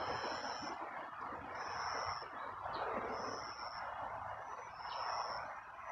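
Outdoor ambience: a steady rushing background hum, with a high, thin, even call about half a second long repeating roughly every second and a half.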